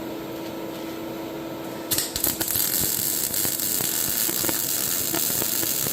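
A wire-feed MIG welding arc, struck about two seconds in and then burning as a steady crackling hiss. Before it, the welding machine's steady hum.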